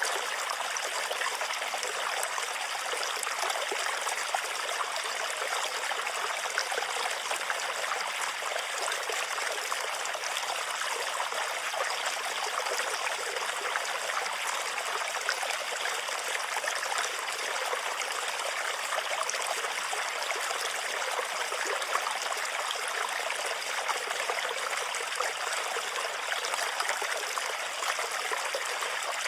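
Water running and splashing steadily in a small stream, an even rushing with fine splashes that does not let up.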